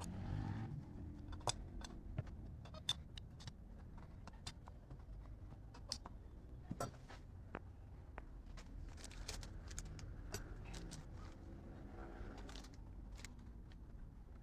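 Small metal parts and hand tools clicking and clinking as they are handled, a few sharp clinks at irregular moments over a low steady hum.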